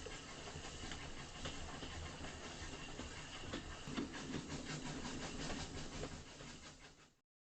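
Train sound: a locomotive running with rail noise and scattered clicks. It fades out and cuts to silence near the end.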